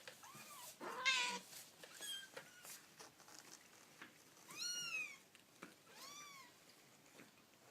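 Kittens mewing: several short, high-pitched mews that rise and fall, the loudest and harshest about a second in and two clearer ones near five and six seconds.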